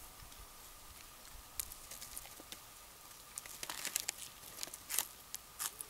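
Biting into and chewing a Subway sandwich on herb-and-cheese bread: a run of crisp, crackly crunches, thickest in the second half.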